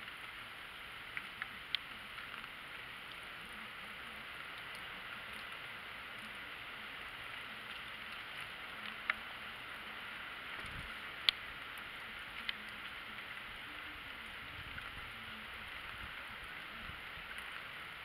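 Snowstorm outdoor ambience: a steady hiss with a few scattered sharp ticks, the loudest about eleven seconds in, over faint distant road traffic.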